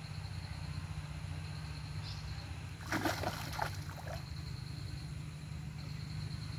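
Water splashing as hands work in knee-deep river water: a short burst of splashes about three seconds in, over a steady low rumble.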